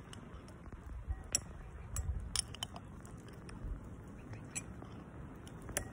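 Metal spoon scraping and clinking inside a glass jar as food is scooped out, a few sharp clicks spread through, over a low rumble of wind on the microphone.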